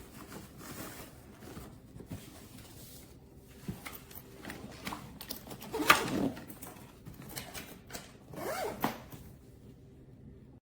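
Zipper and handling noises from a carry-on suitcase: a string of short rustling, scraping pulls, the loudest about six seconds in and another cluster near nine seconds.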